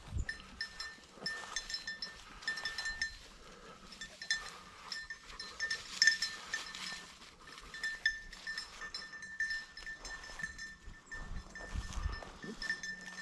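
Small bell on a bird dog's collar jingling irregularly as the dog moves, over light footsteps and rustling in brush.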